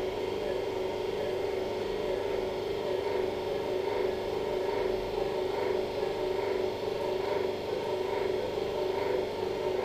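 Steady machine hum of operating-room equipment, with a faint soft pulse repeating about every two-thirds of a second.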